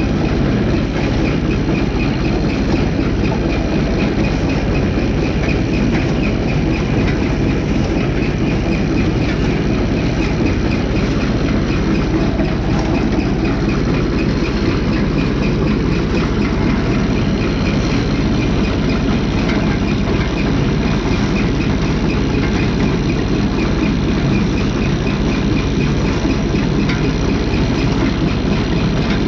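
Tractor engine idling steadily while driving an International 990 mower-conditioner at low speed through the PTO, its drive chain and running parts giving a fast, even clatter over the engine.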